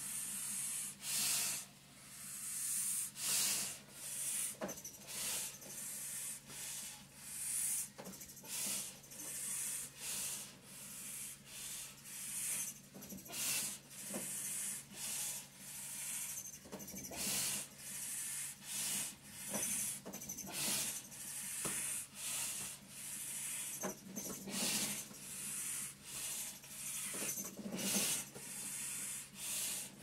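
Rapid, heavy breathing through a breathing-resistance endurance mask, a hissing rush about once a second, over the steady low hum of a running vibration plate.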